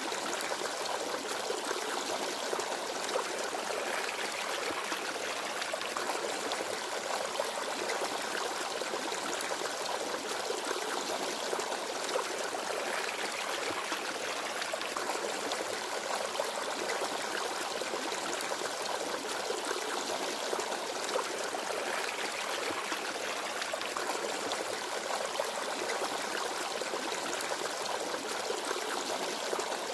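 Small forest stream babbling and trickling over rocks, a steady flow of water without birdsong.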